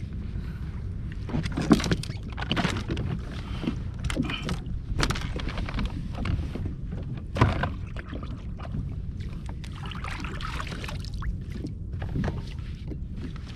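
Water sloshing against a kayak on the open ocean, with wind rumbling on the microphone and scattered knocks and splashes against the hull, the sharpest about two seconds in and again past seven seconds.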